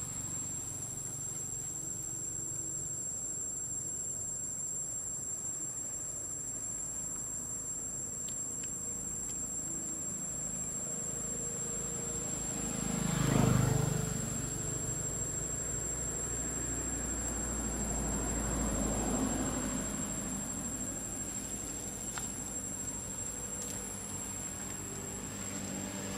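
Steady high-pitched whine, with a vehicle passing by about halfway through, swelling and fading over a couple of seconds, and a quieter low rumble rising and falling a few seconds later.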